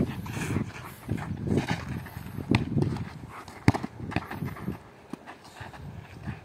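Children's shoes running and scuffing on a dirt football pitch, with one sharp kick of the ball about three and a half seconds in.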